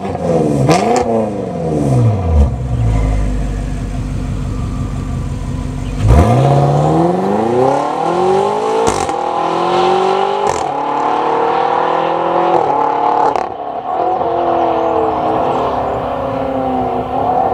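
BMW F85 X5M's twin-turbo V8 through an Eisenmann valved performance exhaust with catless downpipes: a rev that falls back to a low idle, then at about six seconds a hard launch, the engine pitch climbing and breaking at each upshift about three times as the car pulls away.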